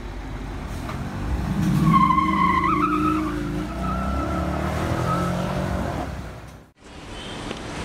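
Dodge Challenger SRT8's V8 accelerating past, loudest about two seconds in, with a brief wavering high squeal above the engine. It runs on as the car pulls away, then fades out near the end.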